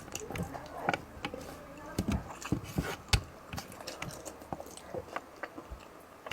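Close-miked eating sounds: irregular wet clicks and smacks of chewing and biting into fish in coconut sauce, a little louder about two to three seconds in.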